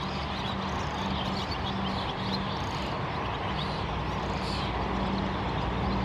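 Steady outdoor background noise with a low hum running through it, and faint short bird chirps scattered across it.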